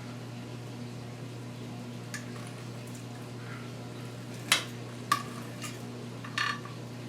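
A knife clinking and tapping against a baking dish while fat is trimmed from raw chicken breasts: a few sharp clicks, some with a short ring, the loudest about four and a half seconds in. A steady low hum runs underneath.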